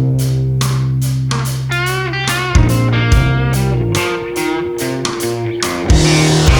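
Background rock music: guitar over bass and a steady drum beat, the guitar bending notes up and down near the middle.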